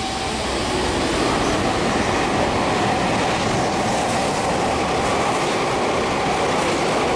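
Meitetsu electric train passing through a station at speed without stopping: a steady rumble of wheels on rail that builds in the first second and then holds, with a faint steady tone in it.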